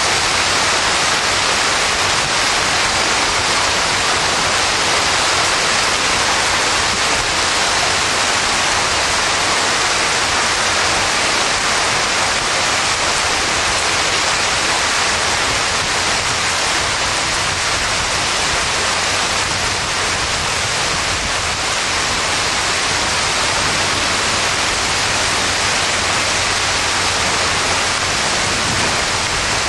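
Heavy rain mixed with hail pouring down, a loud, dense, steady hiss.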